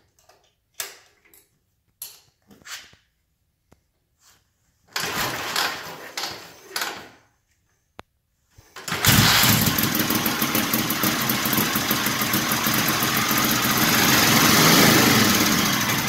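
1940 Harley-Davidson UH 80-cubic-inch flathead V-twin being kick-started cold on choke with the spark at full retard. A few kicks give short knocks and a brief burst of noise, then it fires and catches about nine seconds in and keeps running steadily.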